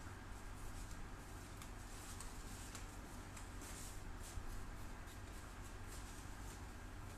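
Quiet room tone: a steady low electrical hum under faint scattered ticks and rustles, with one soft knock a little past halfway.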